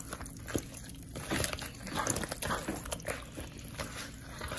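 Hand mixing raw chicken pieces coated in mustard, hot sauce and dry seasoning in a plastic bowl: irregular wet squelches and slaps of the meat, with small clicks against the bowl.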